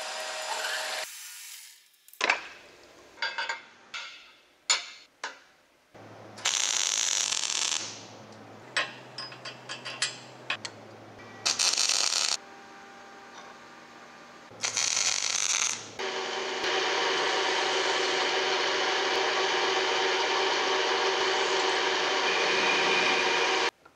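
Machine-shop sounds in quick succession: a metal lathe drilling, a run of sharp clicks and taps, then three crackling bursts of MIG welding about a second each. For the last seven seconds a metal lathe runs steadily with an abrasive strip held against the spinning part, cutting off suddenly just before the end.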